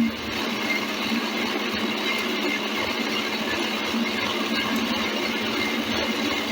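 Electric motor driving a 3D-printed plastic gearbox, with the gears and shafts running steadily as one continuous mechanical whirr.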